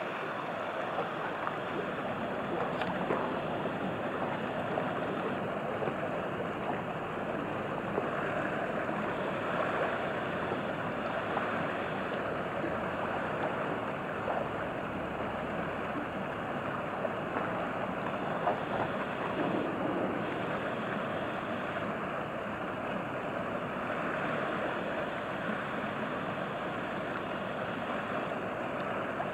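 Steady wash of river water and small waves, an even grainy rush with no clear engine note.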